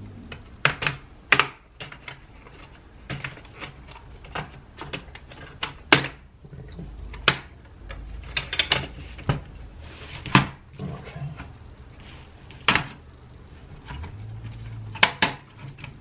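Plastic clips of a Dell laptop's case snapping and clicking loose one after another as a pry tool is worked along the seam, with bits of plastic scraping between the clicks. Near the end a couple of sharper knocks come as the laptop is handled and set down on the table.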